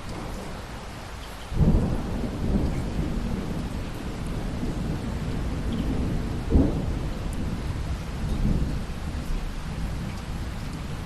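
Thunder over steady rain. A sudden thunderclap about a second and a half in rolls into a long low rumble, with a second sharp crack about halfway through.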